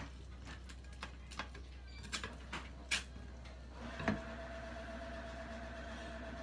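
Aji-kiri knife cutting sardine on a plastic cutting board: a scatter of light knocks and scrapes of the blade on the board, the sharpest just after four seconds in as the knife is put down. From about four seconds in a steady hum at a constant pitch sets in underneath.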